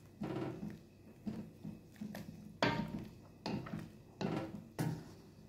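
Wooden spatula stirring instant noodles in broth in a pan: faint, irregular scrapes and light knocks, about one or two a second.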